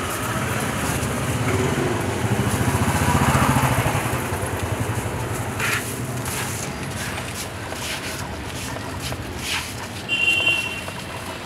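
Street traffic: a motor vehicle's engine passes close by, swelling over a few seconds and then fading. A few sharp knocks follow, and a brief high beep sounds near the end.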